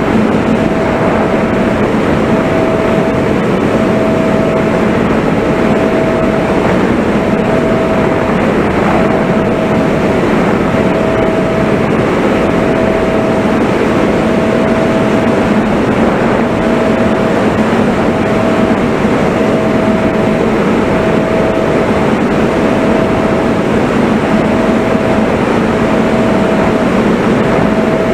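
Steady rush of wind and the motor and propeller of a model flying wing in flight, heard from the onboard camera, with a faint hum that pulses on and off about every second and a half.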